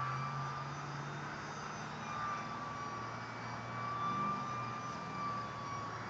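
Electric motor and propeller of a ParkZone AS3X MiG radio-controlled model plane whining in flight: a thin high whine that comes and goes and wavers slightly in pitch, over a low steady hum.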